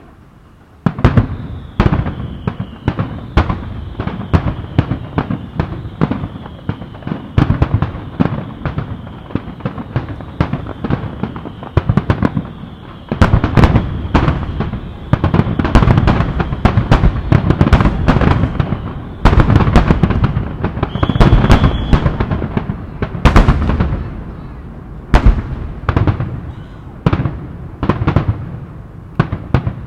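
A dense barrage of aerial fireworks bursting in rapid succession, sharp cracks and deep booms overlapping almost continuously, starting about a second in.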